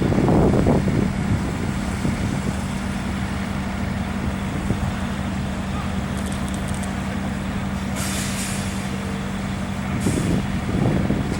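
Diesel engine of a ready-mix concrete truck running steadily, with a short hiss of released air about eight seconds in and another near the end.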